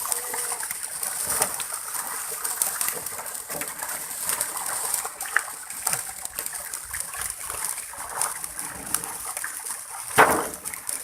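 Water splashing and sloshing in small, irregular splashes over a steady high hiss, with one louder splash about ten seconds in.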